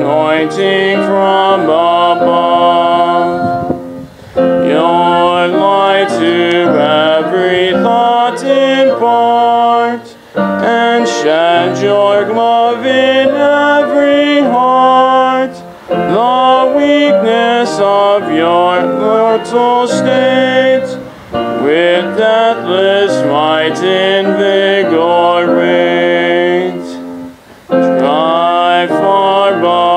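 A hymn sung by a small group of singers with instrumental accompaniment, line by line, with a short break between phrases about every five to six seconds.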